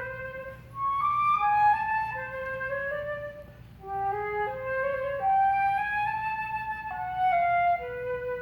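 Solo flute playing a melody of held notes in short phrases, with brief breaks about a second in and again near the middle.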